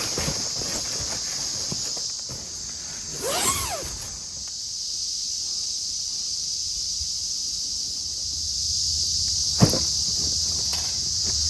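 Steady high-pitched chorus of insects singing. A few knocks and handling sounds come through it, the sharpest about ten seconds in, and a short squeak rises and falls in pitch about three seconds in.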